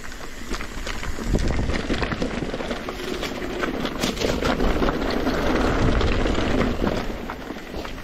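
Mountain bike rolling down a rocky dirt trail: tyres crunching over dirt and stones, with quick knocks and rattles from the bike over the bumps and a low wind rumble on the microphone.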